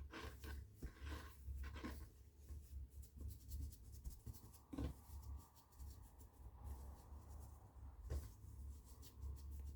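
Hands rolling and shaping baguette dough on a floured board: faint, irregular rubbing and patting, with a soft thump about five seconds in and another about eight seconds in.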